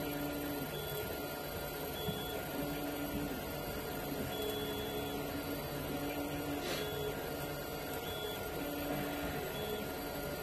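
3D printers running: a steady fan hum, with the stepper motors' tones starting and stopping at a few different pitches as the print heads move.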